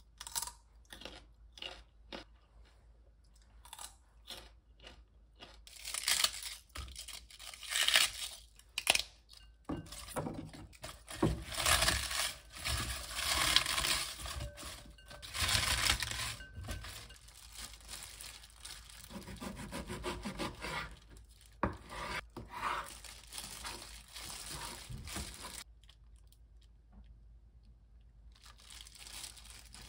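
Cut cabbage squeezed and crushed by hand in a glass bowl, a dense crunching and rustling that is loudest through the middle of the stretch. It is preceded by a string of separate sharp knocks and followed by quieter handling sounds.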